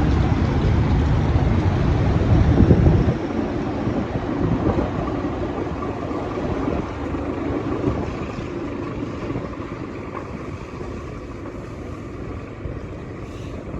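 Vehicle travelling on the road with wind buffeting the microphone: a heavy low rumble that drops off about three seconds in, then a steady, slowly fading road noise.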